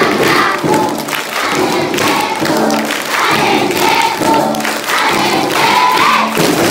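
A large group of children singing together, with hand clapping through the singing.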